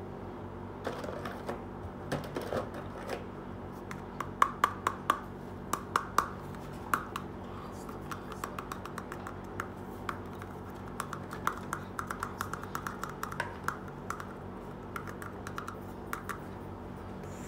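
Small plastic toys being handled: a toy hair dryer and doll clicking and tapping in irregular clusters of light, sharp clicks.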